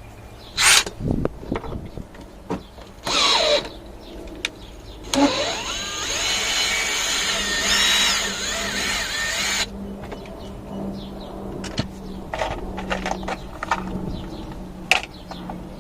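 Plastic dashboard trim panels being pried off and handled: clicks, rattles and knocks, with a noisier stretch of rasping and wavering squeaks in the middle lasting several seconds.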